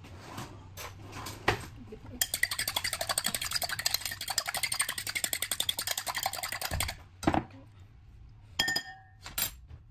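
A metal fork beating a raw egg in a ceramic bowl: a rapid run of clicking strokes against the bowl for about five seconds, then a few single clinks near the end with a brief ring.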